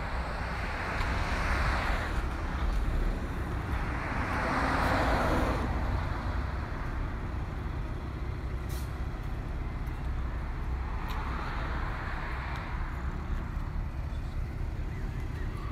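Road traffic passing by: three swells of tyre and engine noise as vehicles go past, each lasting about two seconds, over a steady low rumble.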